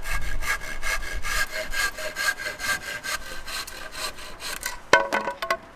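Saw cutting through a wooden board with quick, even back-and-forth strokes, about four a second. Near the end the strokes stop and there is a sharp knock with a brief ring.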